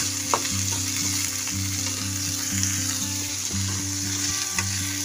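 Sliced kurtole (spiny gourd) sizzling steadily as they shallow-fry in hot oil in a kadhai, with one sharp tap near the start.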